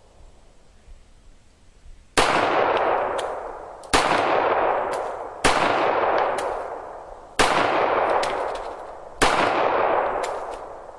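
Para GI 1911 pistol firing five single shots, about one every one and a half to two seconds, starting about two seconds in. Each shot echoes out slowly.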